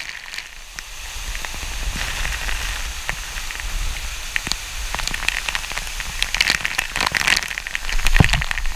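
Waterfall spray spattering on a GoPro camera, a dense run of droplet hits over a steady rush of falling water, the hits growing thicker and louder in the second half.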